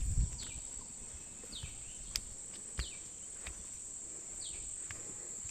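Steady high-pitched drone of insects, with short falling bird chirps about once a second over it and a brief low rumble at the very start.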